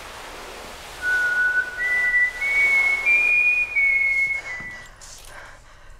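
A person whistling a slow tune of a few long held notes, rising step by step and then dipping slightly, starting about a second in and fading out near the end.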